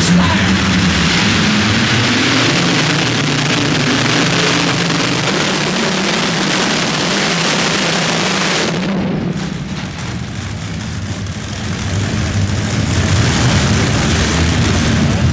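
Multi-engine unlimited-class pulling tractor running at full throttle under load during a pull. About nine seconds in the throttle comes off and the engines fall to a lower, steadier run, picking up again near the end.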